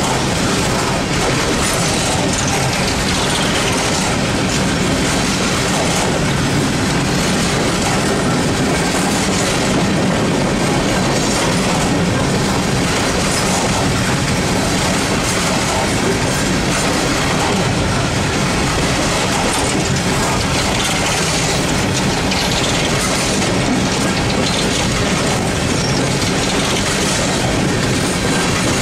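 Freight train of open-top steel-wheeled coal cars rolling steadily past at close range: a continuous rumble of wheels on rail with clatter over the rail joints. Faint high wheel squeals come and go.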